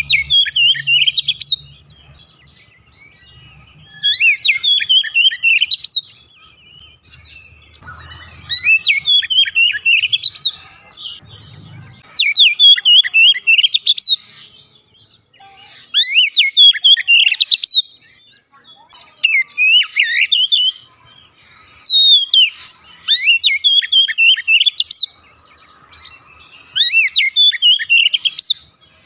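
Oriental magpie-robin singing in repeated phrases of about two seconds with short pauses between them, each phrase a rapid run of high, sliding whistled notes.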